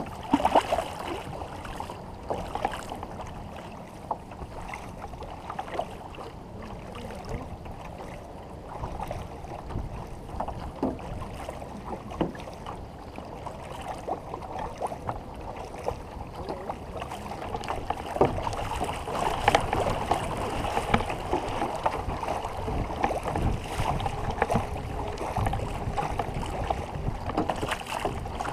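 Canoe paddles dipping and pulling through the water, with irregular splashes and water washing along the hull. It grows louder about two-thirds of the way through.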